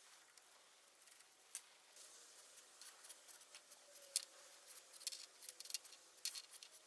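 Irregular light clicking and ticking, a few single clicks at first, becoming busier from about three seconds in.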